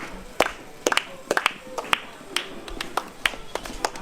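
Scattered clapping from a small audience: separate sharp claps, about three or four a second, unevenly spaced, over faint murmuring voices.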